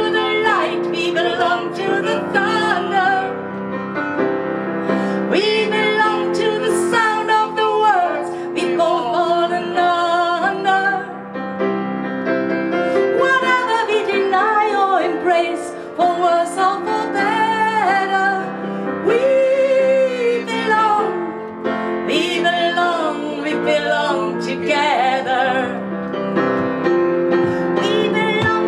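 A woman singing with piano accompaniment.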